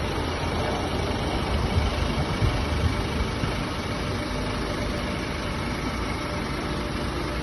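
Diesel engine of a Jeep Wrangler Rubicon idling steadily.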